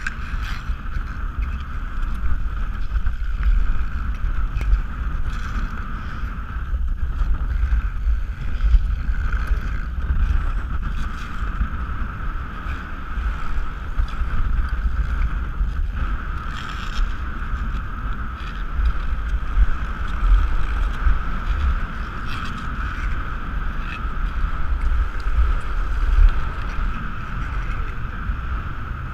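Wind rushing over a moving action-camera microphone as it travels with short track speed skaters around the rink, with a steady hum underneath and faint scrapes of skate blades on the ice now and then.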